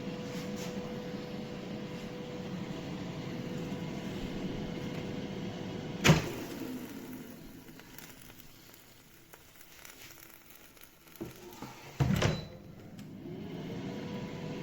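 Cecotec Cecofry Dual 9000 air fryer's fan running with a steady hum and whine. About six seconds in there is a clunk and the fan winds down almost to quiet; a second clunk comes about twelve seconds in, and the fan spins back up with a rising whine.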